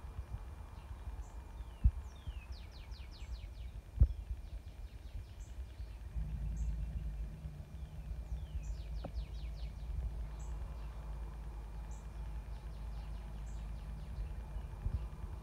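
Outdoor ambience with birds calling: repeated runs of quick, falling high notes and short high chips. Under them runs a low rumble that gets louder about six seconds in, and there are two sharp knocks, about two and four seconds in.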